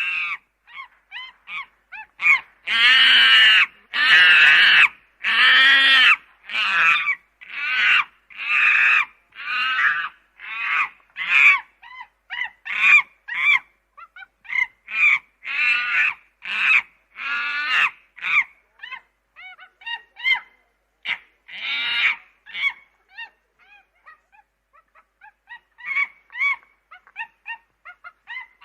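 Chimpanzee calling in a long series of short, pitched calls. The longest and loudest calls come about three to six seconds in; after that the calls are quicker and shorter, thin out past the middle, and pick up again near the end.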